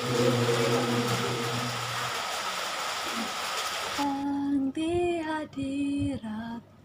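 A group singing a worship song, the held last note dying out about two seconds in over a steady rushing wind and road noise. About four seconds in the noise cuts off abruptly and a woman's clear solo voice begins singing sustained notes with short breaks between them.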